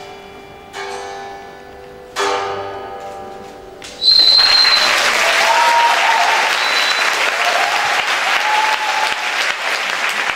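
Two last strikes with sticks on the strings of a rack of guitar necks, each ringing out as a bright chord and dying away; about four seconds in, an audience starts applauding loudly, with a high whistle and cheering voices.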